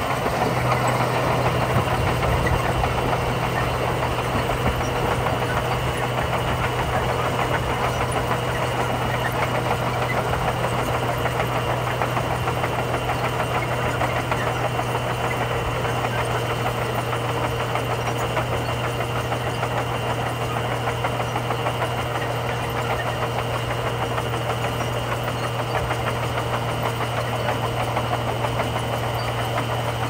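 Komatsu crawler bulldozer's diesel engine running steadily under load as the blade pushes gravel, a constant low hum with a rattling clatter over it.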